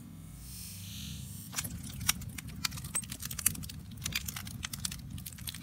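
Wood fire in a metal fire pit crackling, with irregular sharp pops starting about a second and a half in over a low, steady rumble.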